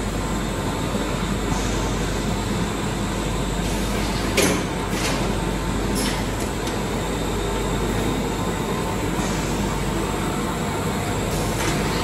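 Steady drone and hum of running confectionery-factory machinery, with a sharp knock about four seconds in and a few lighter clicks later.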